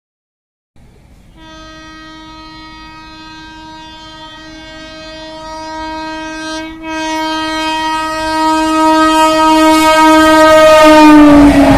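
WAP-7 electric locomotive's air horn sounding one long single-tone blast that grows steadily louder as the train approaches, with a brief dip about seven seconds in. Near the end the horn's pitch drops as the locomotive passes, and the rushing rattle of the passing train takes over.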